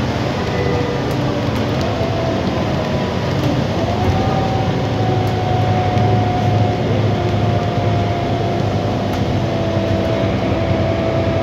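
Van Hool AG300 articulated bus's engine running with a deep steady rumble and a thin whine on top, the whine stepping up in pitch about four seconds in as the bus creeps forward.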